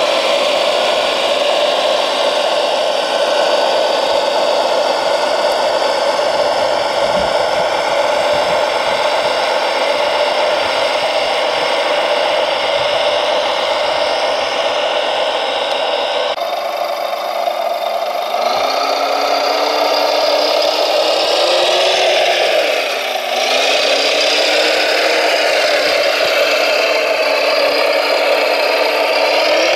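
Radio-controlled scale model trucks and wheel loader driving, their electric motors and gearboxes whining steadily with a rattle. After a sudden change about halfway through, the drive whine rises and falls in pitch as the machines change speed.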